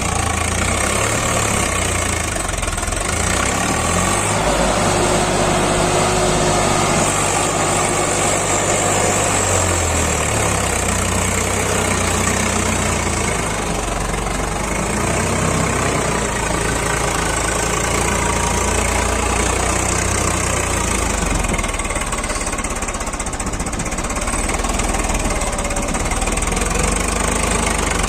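Swaraj tractor's diesel engine running steadily, its note shifting for a few seconds between about four and ten seconds in.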